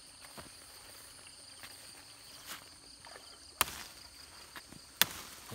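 Two sharp snaps a second and a half apart in the second half, as young cassava leaf stalks are broken off by hand, over the steady high trill of crickets.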